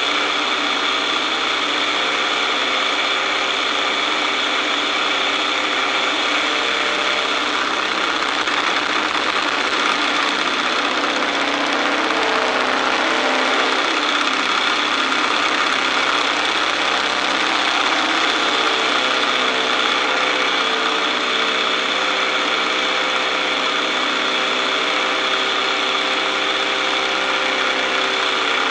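Boeing-Stearman Model 75 biplane's radial engine running in flight, with a loud rush of airflow over the wing-mounted microphone. The engine note shifts in pitch about halfway through as the aircraft goes through an aerobatic manoeuvre.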